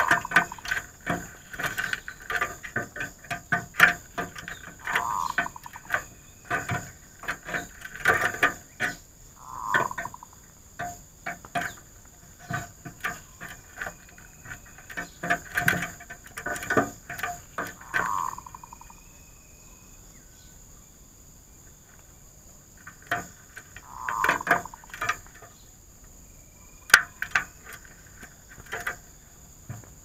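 Zebra doves calling: bursts of rapid staccato notes, each run often ending in a short rounder coo, repeating every few seconds with a lull past the middle. A steady high insect drone runs underneath.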